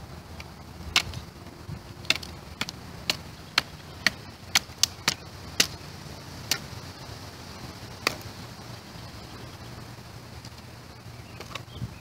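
Sharp wooden knocks, about a dozen at roughly two a second, then tailing off after about eight seconds. They come from a Spyderco Endura 4 folding knife being struck through a piece of firewood to split it.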